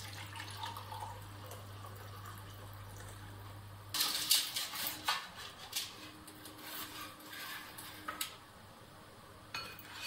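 Hot water poured from a kettle into a ceramic mug. About four seconds in, this gives way to a run of sharp clicks and scrapes as a spatula scrapes across a metal baking tray lined with parchment and lifts toast onto a glass plate.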